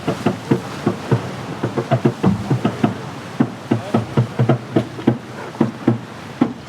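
Rapid, irregular knocks and taps, several a second, over a steady rushing noise.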